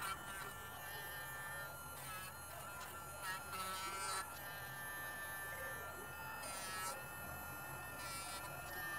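Small handheld battery rotary tool whirring with a high buzz as its bit works the edge of a leather strip, under background music.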